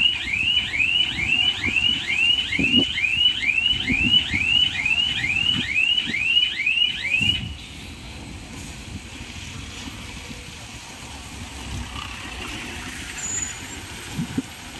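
Lorry's reversing alarm sounding a rapid run of falling chirps, about three a second, that stops abruptly about halfway through, over the low rumble of the diesel engine.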